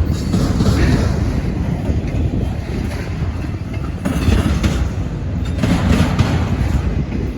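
Freight train cars rolling past, a steady rumble of steel wheels on the rails with scattered clicks as the wheels cross rail joints.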